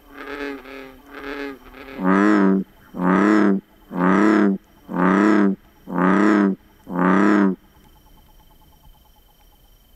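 American bullfrog calling: a series of low, drawn-out croaks about one a second, two softer higher ones first, then six loud ones that stop about three-quarters of the way through. Faint chirping of western toads can be heard in the background once the bullfrog falls quiet.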